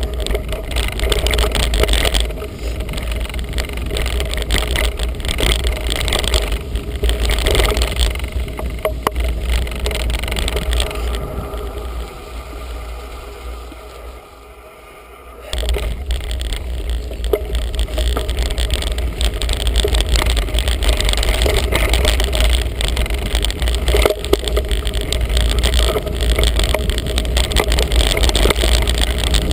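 Felt Edict Elite mountain bike being ridden along a rough dirt and gravel track: a steady rumble of wind buffeting the microphone, with tyre and frame rattle. The noise drops for a few seconds about twelve seconds in, then comes back as loud as before.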